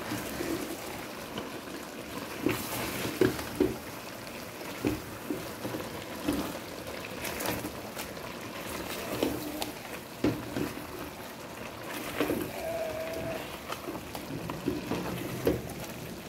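A plastic spoon stirring thick yam porridge in a pot: wet sloshing and squelching, with irregular scrapes and knocks of the spoon against the pot.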